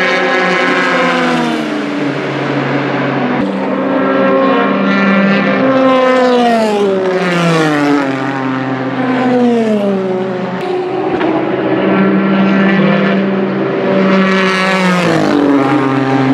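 Ford GT GTE race cars' twin-turbo 3.5-litre V6 engines running at high revs as the cars climb past one after another. The pitch falls several times as they go by, and the last car passes close, louder, near the end.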